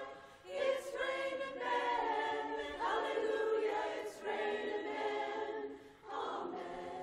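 Women's chorus singing a cappella in sustained close harmony, with short breaks between phrases about half a second in and again near six seconds.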